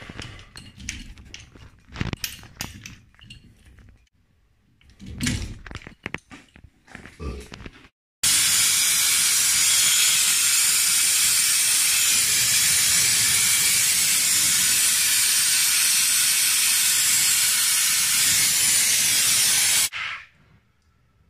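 Scattered clicks and knocks of tools being handled. Then a loud, steady hiss of a gas jet starts abruptly about eight seconds in and cuts off shortly before the end.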